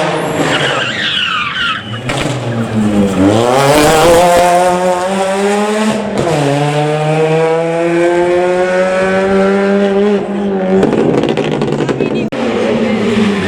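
Rally car engine at full throttle on a gravel stage: the engine note climbs steadily, drops sharply at an upshift about six seconds in, climbs again, then falls away near the end.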